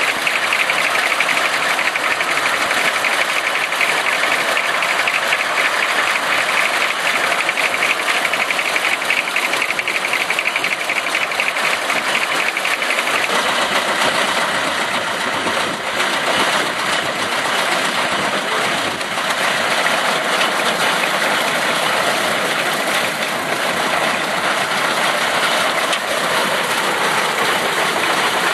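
Ronaldson Tippett one-bag travelling chaff cutter running under belt drive, a loud, steady, dense mechanical clatter. The sound changes in character about halfway through.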